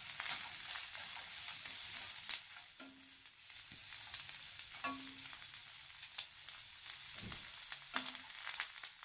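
Shrimp, chopped garlic and onion sizzling in hot oil in a nonstick frying pan, with scattered clicks and scrapes of tongs against the pan as the shrimp are turned.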